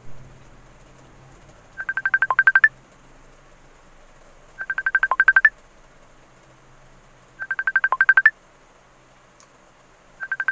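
Phone ringtone for an incoming call: short trilling bursts of rapid beeps, repeating about every three seconds.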